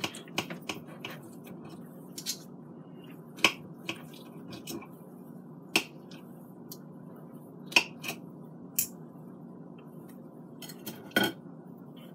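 Fork and knife clicking and scraping against a ceramic plate while cutting a piece of steak: a dozen or so sharp, separate clicks at uneven intervals over a steady low hum.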